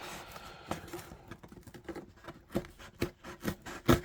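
Light handling noises from a cardboard parcel being opened: a scatter of short knocks, taps and rustles, the loudest near the end.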